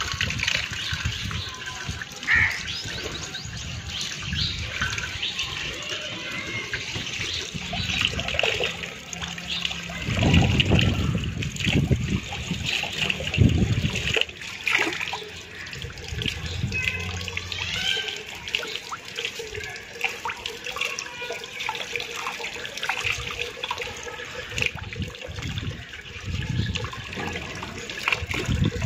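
Tap water running onto a leg of mutton and splashing into a steel bowl below as the meat is rinsed and turned by hand, with irregular splashes and handling knocks.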